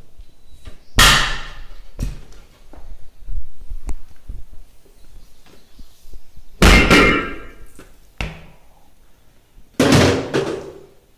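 Heavy metal-on-metal impacts during bus tire-changing work: three loud bangs with a short ringing tail, about a second, six and a half seconds and ten seconds in, among lighter knocks and clicks.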